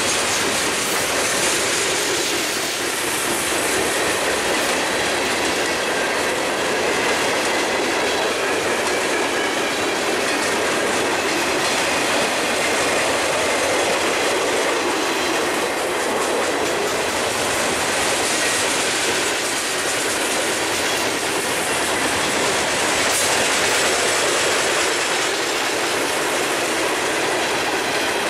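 Freight train cars rolling past close by at a steady speed: steel wheels running on the rails and clicking over the rail joints in a continuous stream.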